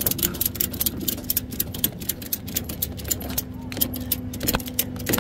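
Ratchet strap being cranked tight over a tractor's wheel on a tow truck's flatbed: a run of quick metallic clicks, over a steady low hum.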